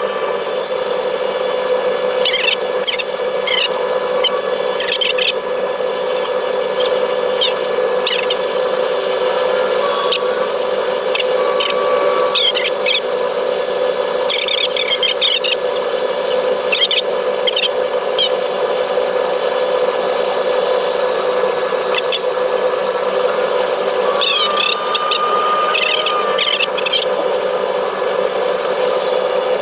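Heavy machinery running with a steady hum, with short, high-pitched squeaks and clicks coming and going throughout.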